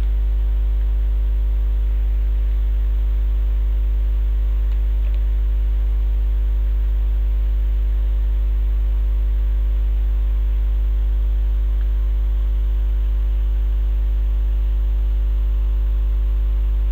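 Loud, steady electrical mains hum with a buzzy stack of overtones, unchanging; no other sound stands out above it.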